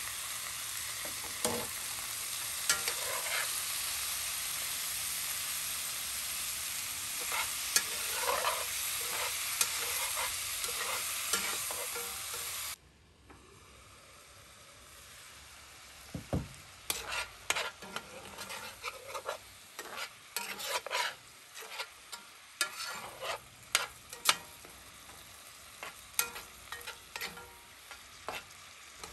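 Ground beef and chopped tomatoes and onions frying in a cast iron skillet: a loud, steady sizzle. About 13 seconds in the sizzle drops to a much quieter hiss, and a metal spoon scrapes and taps against the pan again and again as the food is stirred.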